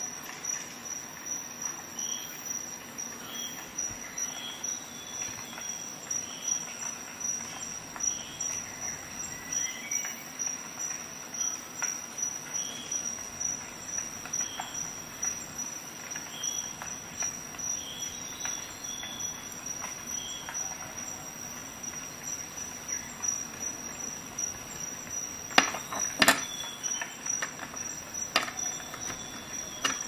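Small metal clicks from a Gerber Curve keychain multi-tool being handled, its stainless tools folding and locking, with the two loudest clicks close together about four seconds before the end. A steady high-pitched whine and soft regular ticking, about one and a half a second, run underneath.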